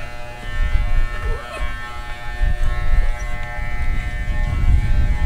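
Electric pet hair clippers with a guard comb running with a steady buzz while cutting a dog's coat, over an uneven low rumble.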